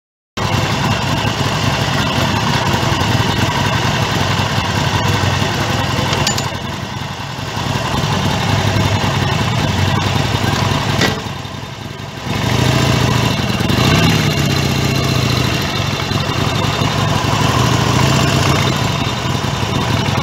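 Motorcycle engines idling steadily, cutting in suddenly just after the start, with one engine revving up and dropping back about two-thirds of the way through.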